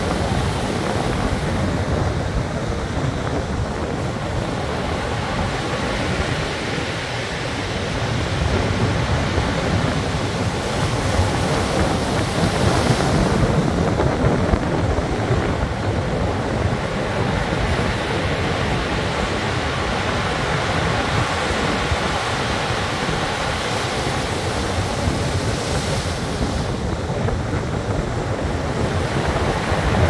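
Rough surf breaking on a pebble shore and washing around concrete tetrapods, a continuous rush of water that swells a little around the middle, with strong wind buffeting the microphone.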